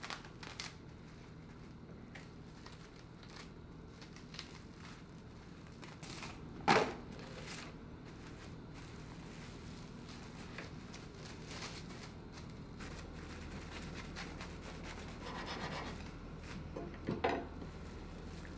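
Plastic cling wrap crinkling and rustling as a sandwich is wrapped tightly by hand, in short irregular crackles, the sharpest about a third of the way through and another cluster near the end.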